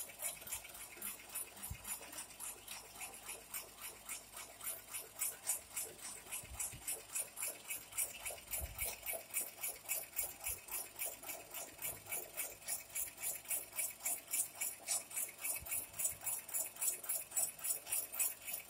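Electric jackfruit slicer running as jackfruit bulbs are fed through, its cutting mechanism clicking in a steady rhythm of about four sharp ticks a second.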